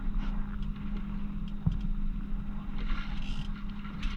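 Boat motor running with a steady hum under a noisy haze of wind and water, with a single knock about one and a half seconds in.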